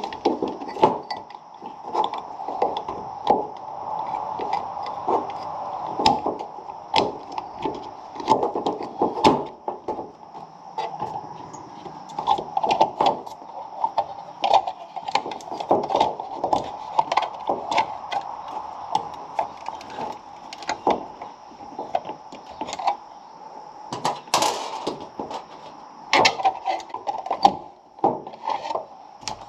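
A GFCI outlet and its stiff wires being handled and folded into an electrical box: irregular clicks, knocks and scrapes of plastic and metal, with a longer scrape about 24 seconds in.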